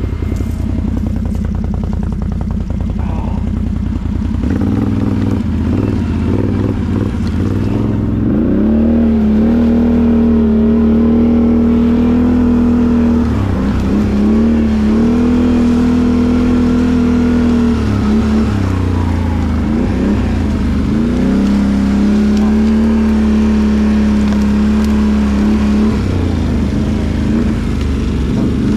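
Can-Am Outlander ATV engine running under way on a trail, its pitch climbing and holding steady as the throttle is opened, then dipping briefly and climbing again several times.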